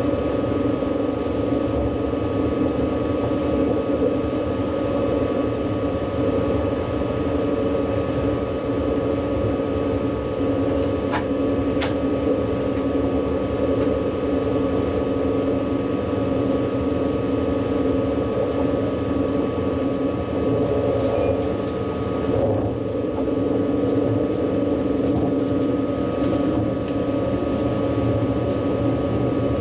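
Steady running noise of an ICE high-speed electric train heard inside the driver's cab, with constant electric hums over a rumbling undertone. Two short clicks about eleven seconds in.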